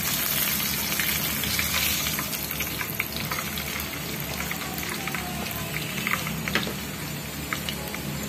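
Hot cooking oil sizzling in a wok with chicken frying in it, a steady sizzle with scattered crackles and pops. The sizzle eases a little after a few seconds as the last piece of chicken is lifted out of the oil.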